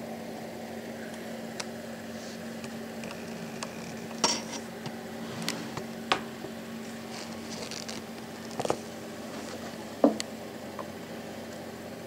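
Handling noise: short knocks, clicks and rustles as a suede skate shoe is moved and picked up off a wooden table and the camera is handled, over a steady low hum. The loudest knocks come about four seconds in and about ten seconds in.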